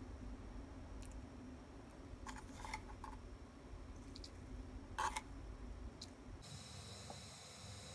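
A few light clicks and taps of plastic kitchenware, a plastic spoon scooping and a container being handled, with the loudest tap about five seconds in, over a low steady hum.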